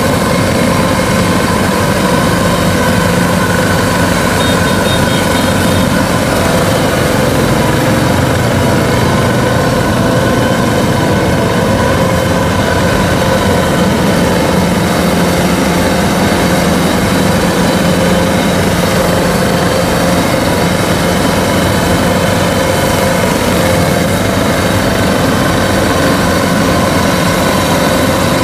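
Kubota DC-93 combine harvester's diesel engine running steadily as the machine travels on its rubber crawler tracks.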